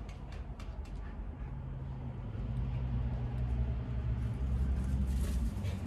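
A low, steady engine hum that grows louder about two seconds in, with a few light clicks near the start.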